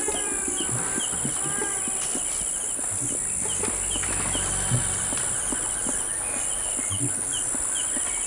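Forest insects: a steady high-pitched drone with a repeating pulsed chirp, joined by a short pitched animal call in the first two seconds and scattered soft clicks.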